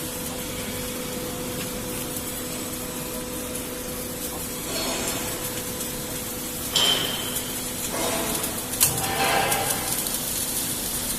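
An H-beam 3-in-1 welding machine running with a steady electrical hum. There is a sharp metallic clank about seven seconds in and another about nine seconds in, with short stretches of hissing noise between them.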